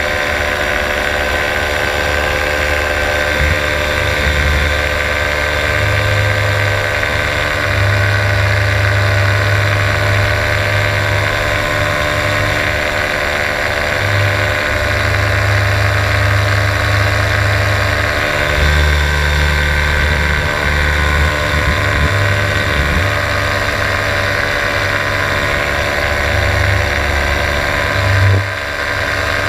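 A small engine running steadily at a constant speed, its drone holding the same pitch throughout, with wind rumbling on the microphone in uneven low gusts.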